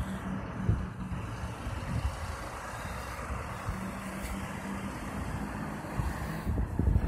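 Rear-loading garbage truck's diesel engine running as the truck drives slowly away, a steady hum over a low rumble.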